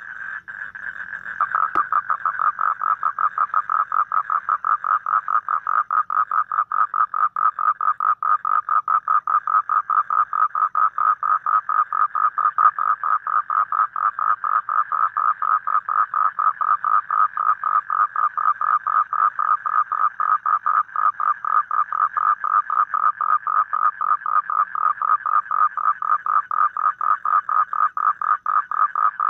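A toad calling: one long, steady trill of rapidly repeated high pulses. It breaks off for about a second near the start, then runs on unbroken.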